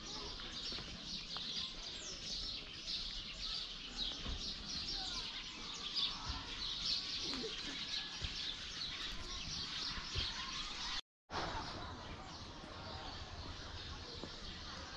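Chorus of many small birds chirping and twittering continuously in trees. All sound cuts out for a moment about eleven seconds in.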